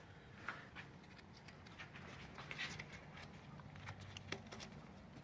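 Faint rustling and scattered small clicks as strap webbing is handled and worked through a metal bracket on a rucksack frame, over a low steady room hum.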